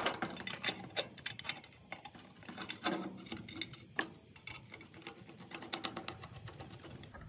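Hand screwdriver driving a Phillips-head screw through a float valve's metal clamp: a run of light, irregular metallic clicks and ticks, with a few sharper clicks.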